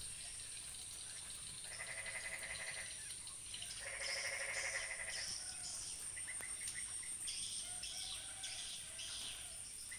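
Frogs calling in the rain: two long pulsing calls a couple of seconds apart, then shorter calls, over a steady high-pitched insect hum.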